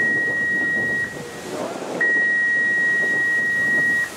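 Referee's whistle blown in two long, steady, high blasts. The first ends about a second in, and the second follows after a short gap and lasts about two seconds: the long blasts that end the half.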